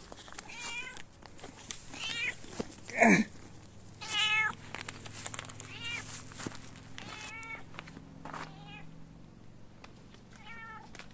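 A tortoiseshell domestic cat meowing repeatedly, about eight short meows spread out, the loudest about three seconds in, as she waits to be fed.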